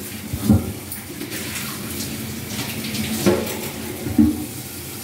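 Pot of thick tamarind gravy (vatha kuzhambu) with lentil dumplings simmering, thick bubbles bursting at the surface with irregular low blurps, a few of them louder.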